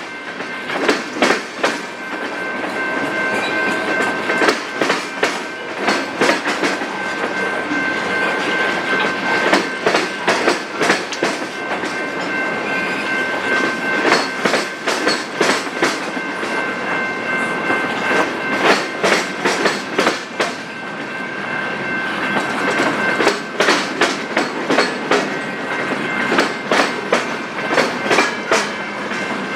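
Freight train cars rolling past, their wheels clicking over rail joints in irregular clusters, with a steady high-pitched ringing tone over the passing train.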